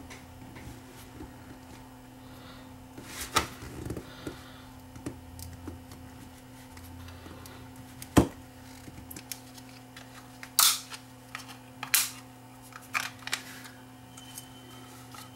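Plastic case of a USB-C wall charger being pried apart at its sealed seam: scattered clicks and sharp cracks as the seam gives, the sharpest a little past the middle and several more in quick succession near the end. A faint steady hum runs underneath.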